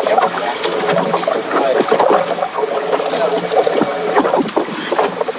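Choppy water slapping and splashing against the hull of a small boat, with wind on the microphone.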